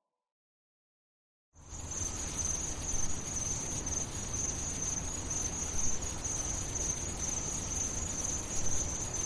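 Steady insect chirring, like crickets, as one constant high band over a low noisy rumble. It starts abruptly out of silence about a second and a half in.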